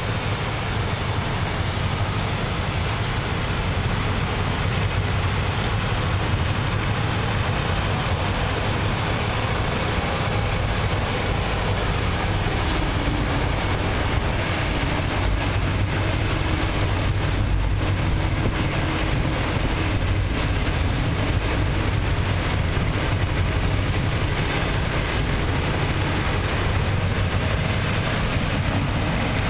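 Steady low drone of a passing tugboat's diesel engines pushing a barge, with wind rushing over the microphone.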